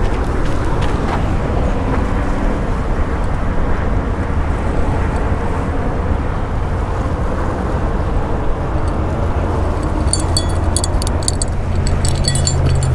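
Steady low rumbling noise, with a run of sharp clicks and rattles starting about ten seconds in.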